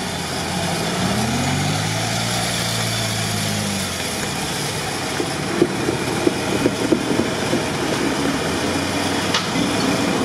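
Engine of a modified UAZ off-roader on giant mud tyres, working through a deep mud rut. Its revs rise in the first second or two, hold, then drop off about four seconds in. A run of irregular short knocks follows over the steady running.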